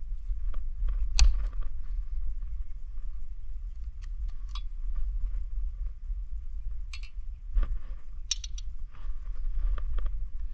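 Scattered small clicks and taps of a screwdriver and hands working the gear-oil drain screws on a Mercury Optimax outboard's lower-unit gearcase, the sharpest about a second in, over a steady low rumble.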